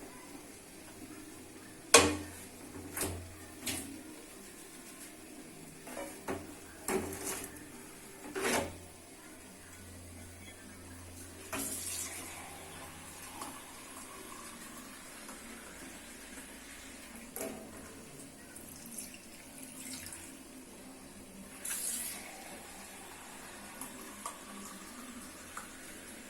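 Water running from a kitchen tap, with sharp knocks and clinks of pots or utensils every few seconds, the loudest about two seconds in.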